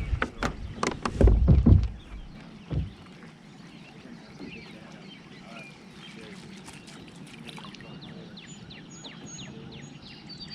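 A quick series of knocks and thumps on a kayak in the first two seconds, and one more knock about a second later. Then a quiet stretch with faint, repeated short bird chirps.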